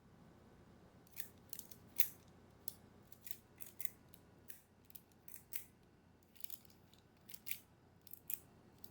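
An irregular series of about twenty short, crisp, high-pitched strokes, starting about a second in, over faint room tone.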